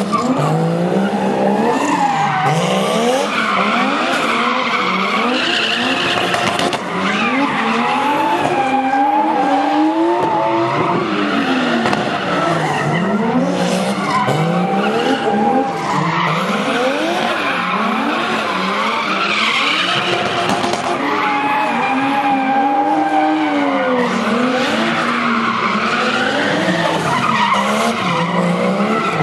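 Two drift cars sliding in tandem: their engines rev up and down over and over as the throttle is worked through the slides, over a constant hiss of skidding, squealing tyres.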